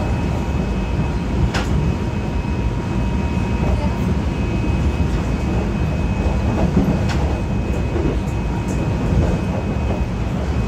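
Subway train running at speed, heard from inside the carriage: a steady rumble of wheels on track with a faint steady high whine. Two sharp clicks sound, about a second and a half in and again about seven seconds in.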